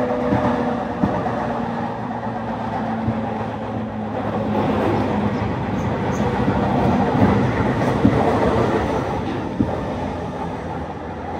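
JR 209 series 1000-subseries electric train running at speed, heard from inside a motor car: a steady rumble of wheels on the track with a faint GTO-inverter motor hum that fades out partway through, and a few light rail-joint knocks.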